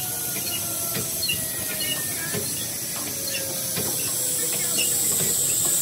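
Train running past on the track: a steady hiss with a clack every second or so as wheels cross rail joints, and a faint whine that slowly falls in pitch. The noise gets louder near the end.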